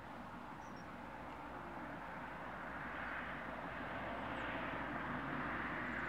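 Distant engine noise: a steady rushing sound that grows gradually louder.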